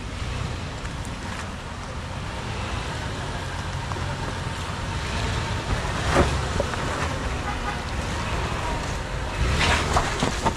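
Off-road vehicle engine running at low speed on a trail obstacle, getting a little louder about midway, with sharp knocks or clunks at about six seconds and a cluster near the end.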